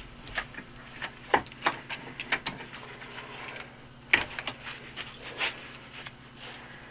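Scattered metallic clinks and knocks of hand tools against a hot railroad spike and a steel vise as the spike is twisted and freed from the vise. The knocks are irregular, about ten of them, with the sharpest one about four seconds in, over a faint steady hum.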